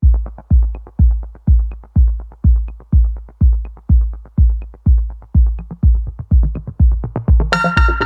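Electronic music: a deep drum-machine kick drum beats steadily about twice a second, with light ticks between the beats. Near the end a bright sustained synthesizer chord comes in over it.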